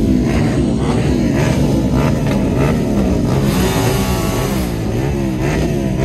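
Loud performance engines revving over and over, the pitch swinging up and down about twice a second. A higher, brighter engine note joins about three and a half seconds in, for about a second.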